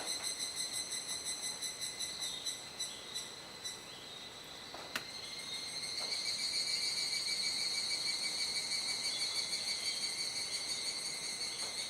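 Evening chorus of cicadas: a rapid, pulsing high-pitched trill. It dips about four seconds in, then a louder wave of song swells back after about five seconds.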